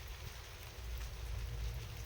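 Rain falling on a car at night, a steady patter of drops with a low rumble underneath that swells about a second in.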